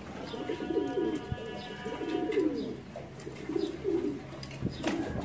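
Domestic pigeons cooing over and over, low rolling coos following one another every half second or so.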